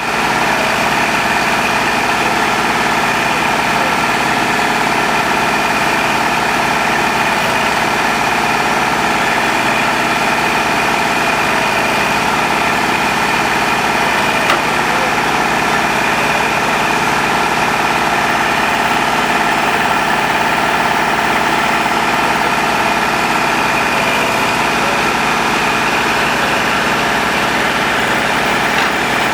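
Engine of the compact tractor carrying a Woods BH75 backhoe, running at a steady speed as it drives the backhoe's hydraulics, with one light click about halfway through.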